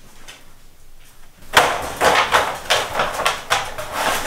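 A golden retriever climbing into a wire dog crate. From about a second and a half in, its paws and body clatter on the bare bottom pan and the wire frame rattles, a string of loud knocks that is very loud and super echoey off the tile.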